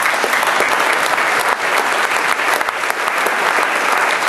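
Audience applauding: a dense, steady mass of hand claps.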